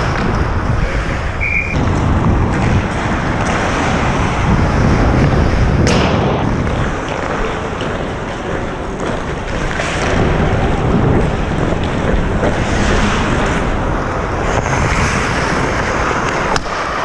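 Wind rushing over a helmet-mounted action camera's microphone as an ice hockey player skates, mixed with skate blades scraping the ice, with a sharp knock about six seconds in.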